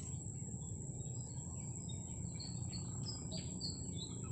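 Insects keeping up one steady high-pitched trill, with a bird giving a quick run of short descending chirps in the second half, over a low steady rumble.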